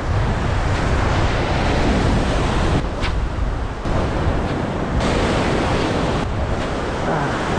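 Ocean surf washing steadily against the shore, with wind buffeting the microphone.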